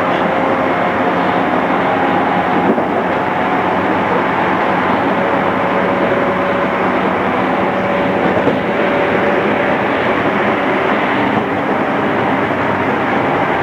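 JR East 211 series electric multiple unit running: a steady rumble of wheels and running gear on the track, with a faint steady whine over it.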